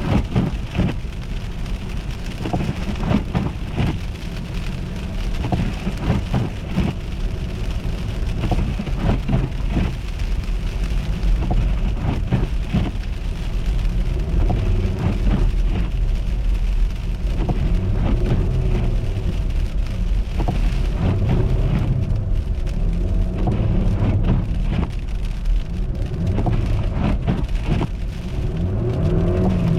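A car driving on an icy, slushy road: the tyres crunch and hiss over the ice under a heavy rumble. In the second half the engine revs up and down several times.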